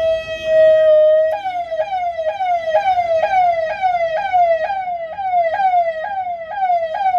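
Ahuja electronic VIP siren sounding through its horn speaker. It holds one steady tone for just over a second, then switches to a fast repeating pattern in which each cycle jumps up in pitch and slides back down, about two and a half times a second.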